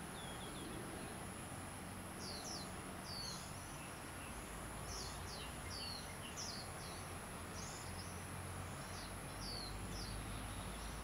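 Small birds chirping again and again in short, quick, downward-sweeping calls. Behind them runs a steady high-pitched insect buzz over faint outdoor background noise.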